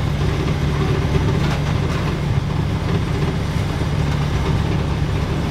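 A vehicle engine running steadily at low, even revs while moving slowly along.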